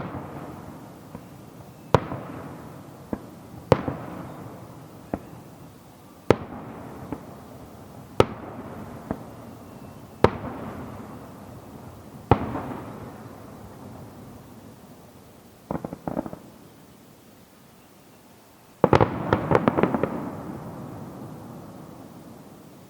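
Aerial fireworks shells bursting, one sharp bang about every two seconds, each followed by a long fading rumble. Near the end a quick cluster of rapid bangs goes off together.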